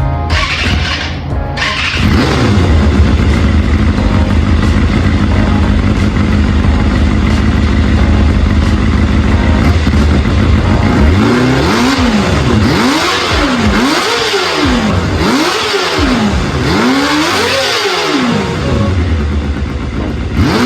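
Kawasaki Balius 250 inline-four motorcycle engine idling steadily, then free-revved four times in a row about halfway through, each blip rising and falling back to idle.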